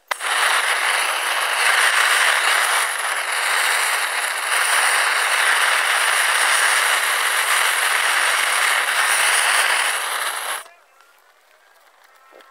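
Torch flame blasting a burning baseball: a loud, steady rushing hiss that starts abruptly and cuts off about ten and a half seconds in.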